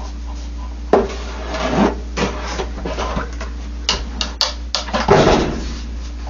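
Washing-machine parts being handled and fitted during reassembly: a sharp knock about a second in, then scattered clicks, scrapes and clunks, busiest between about four and five and a half seconds, over a steady low hum.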